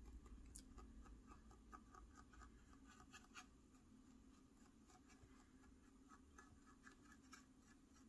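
Near silence, with faint light scratching of a dry brush stroked along the edges of a plastic model roof: a quick run of short strokes in the first half, fewer after.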